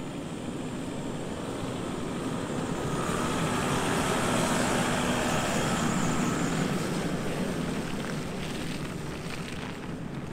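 A Toyota Land Cruiser's 4.2-litre turbodiesel engine pulling uphill on a dirt track as the 4x4 drives past. It grows loudest a few seconds in as the vehicle comes alongside, then fades as it moves off.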